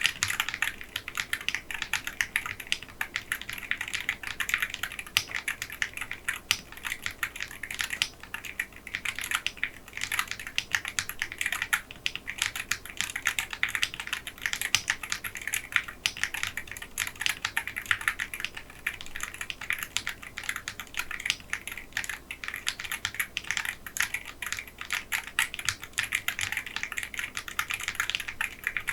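Continuous fast typing on a mechanical keyboard: Gateron magnetic Jade switches on a Wooting 60HE, tray-mounted with a polycarbonate plate in a Geon Frog Mini Leggera case, with XMI keycaps. The keystrokes come in a dense, unbroken run of clacks.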